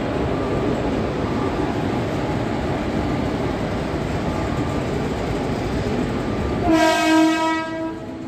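Container freight train rolling past, with the steady rumble of its wagons on the track. Near the end the locomotive's horn sounds once, for about a second.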